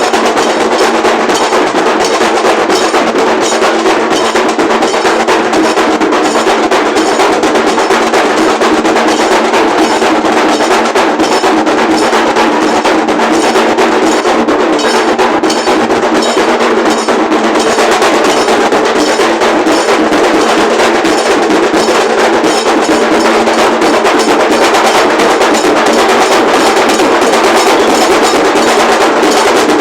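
Loud, fast, continuous drumming on large dhol drums, a dense unbroken stream of sharp strokes.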